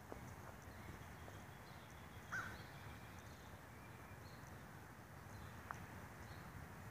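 Faint outdoor quiet with a few distant bird calls, one short, clearer call about two seconds in.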